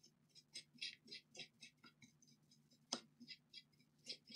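Small brush scrubbing a laptop charging-port circuit board to clear hair and dirt, faint quick scratchy strokes about four a second, with one sharper click about three seconds in.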